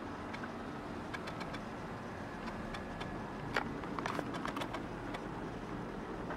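Steady background noise with a short cluster of light clicks and knocks, the sharpest about three and a half seconds in and a few more just after.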